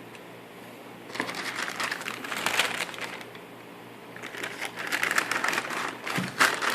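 Packing wrap inside a sneaker box crinkling and rustling as it is handled, in two bouts: from about a second in for two seconds, then again from about four seconds in.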